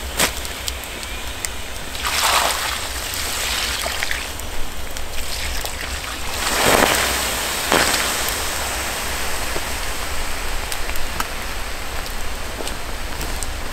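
Water poured from a collapsible bucket onto a campfire's hot embers, hissing and sizzling as it turns to steam. The sound swells louder twice, about two seconds in and again around seven seconds.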